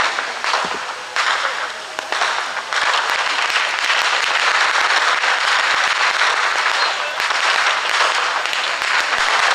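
Many goldfish fireworks hissing and crackling as they spurt across the water: a dense spluttering hiss full of sharp pops. It flares louder as new ones ignite, about a second, two seconds and nearly three seconds in.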